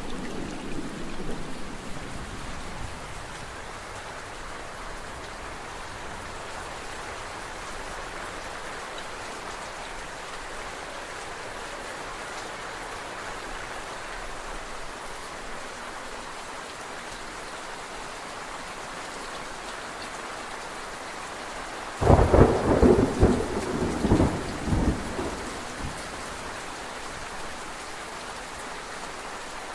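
Steady rain falling, with thunder: a rumble dying away in the first few seconds, then a sudden loud thunderclap about three-quarters of the way through that rumbles on for a few seconds.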